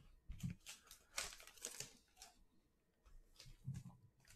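Faint rustling and crinkling of trading cards and a sealed foil card pack being handled, in several short spells.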